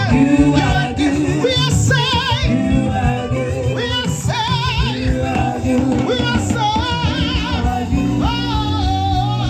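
Live gospel worship music: a woman's voice sings long notes with wide vibrato over a band with bass and guitar.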